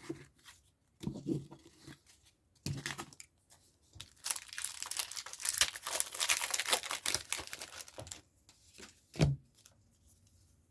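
Pokémon card booster pack's foil wrapper crinkling as it is handled, then torn open in a long ripping stretch of about four seconds.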